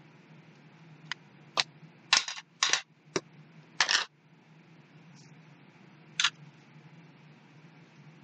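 Sharp plastic clicks and snaps from a Distress Oxide ink pad case being opened and its lid set down on the craft mat, several in quick succession, then one more click a couple of seconds later, over a faint steady hum.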